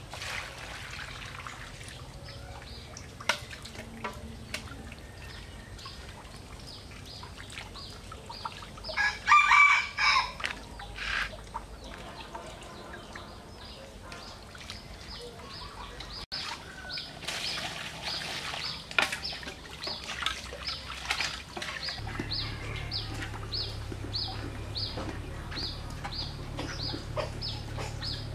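Water sloshing as hands rinse shredded coconut strips in a plastic basin. A rooster crows loudly about nine seconds in. From about halfway, a high short chirp repeats about twice a second.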